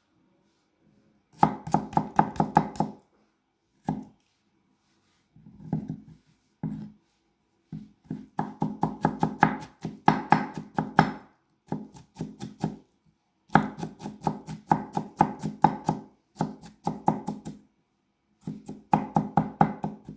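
Kitchen knife chopping cucumbers into small dice on a wooden cutting board. The strokes come quickly, about six a second, in runs of one to three seconds with short pauses between them.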